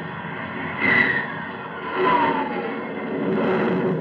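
Sound effect of a jet plane taking off: a rushing engine noise that swells three times, with a whining tone that slides down about a second in and another a little after two seconds.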